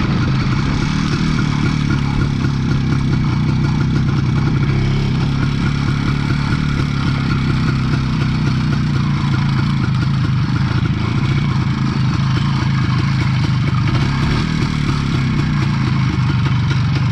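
IZH Planeta 4 motorcycle's single-cylinder two-stroke engine running steadily at an even speed.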